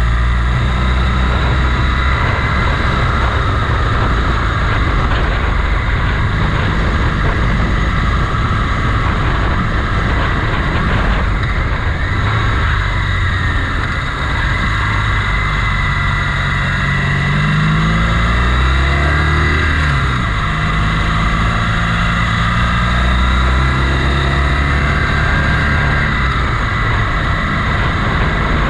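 Motorcycle engine running under way over a steady rush of wind and road noise. The engine note climbs through the middle, falls sharply a little past halfway, then climbs again and levels off.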